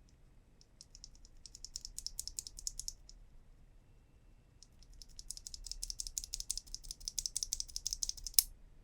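Typing on a mechanical keyboard with Kailh Box Black switches: quick runs of keystroke clacks, a burst of a couple of seconds, a short pause, then a longer run ending in one louder keystroke.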